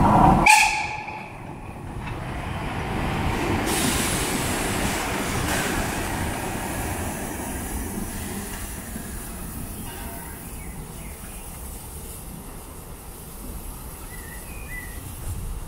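Mecklenburg Molli narrow-gauge steam locomotive 99 2322-8 passing at low speed, a rumbling hiss of steam and running gear that swells about four seconds in and then slowly fades as the engine moves away. Half a second in, a louder sound breaks off abruptly.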